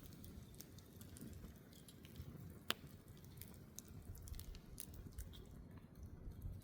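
Wood campfire crackling faintly, with scattered small pops and one louder sharp pop about two and a half seconds in.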